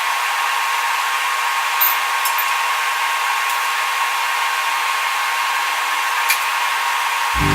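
A steady hiss with a faint steady tone underneath and a few small clicks. Loud music cuts in at the very end.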